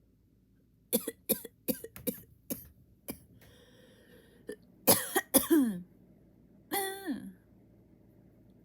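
A person coughing and clearing their throat. A quick run of about seven short coughs comes first, then louder, longer coughs with a falling voice about five and seven seconds in.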